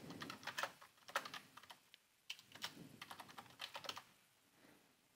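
Faint computer keyboard typing: two quick runs of keystrokes with a short pause about two seconds in, stopping about four seconds in.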